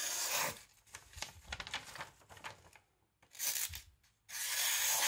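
Paper being sliced by a freshly sharpened, convex-edged Mora Pro C knife: the blade passes through it in long hissing strokes, one ending about half a second in, a short one a little after three seconds, and another starting near the end, with crinkly rustling of the paper between. The clean slicing is the test of a very sharp edge.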